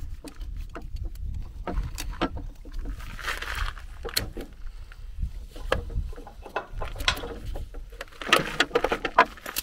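An orange ratchet tie-down strap is being released and pulled free from a boat trailer: the metal ratchet and hook click and rattle many times. The webbing rustles as it is drawn through, in one spell about three seconds in and another near the end.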